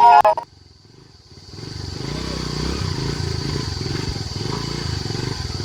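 Motorcycle engine running steadily with a low, even rumble, coming in about a second and a half in after a short flute tune cuts off.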